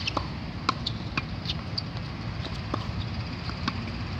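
Tennis balls struck by rackets and bouncing on a hard court during a volley drill: a string of short, sharp pops at irregular intervals over a steady low background rumble.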